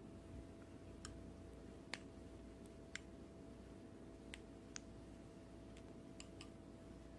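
Slime being handled: faint, sharp little clicks and pops, about seven scattered irregularly, over a low steady hum.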